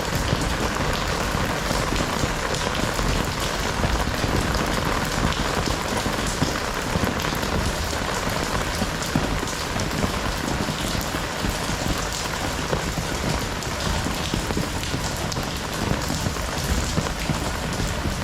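Heavy rain falling steadily and pattering on surfaces, an even hiss of many drops.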